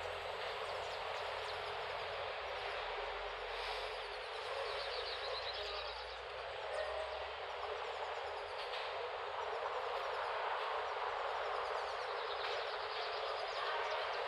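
Steady outdoor background noise with a few faint bird chirps. A low rumble, such as a passing vehicle, fades away in the first few seconds.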